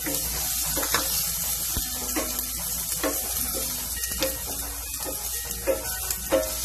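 Steady hiss of rain on the roof mixed with sliced garlic sizzling in a little oil in a stainless steel pan, with a few sharp clicks of a wooden spatula against the pan as it is stirred.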